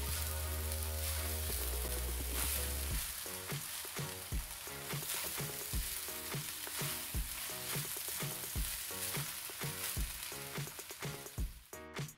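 Egg fried rice sizzling in a hot wok as it is stirred and turned with a spatula, a steady frying hiss and crackle. Background music with a bass line and a regular beat plays under it.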